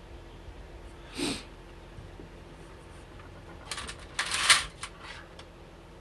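Small metal lockpicking tools, a tension wrench and pick, clinking and rattling together as they are picked up and sorted, in a cluster about four seconds in. A brief rustle comes about a second in.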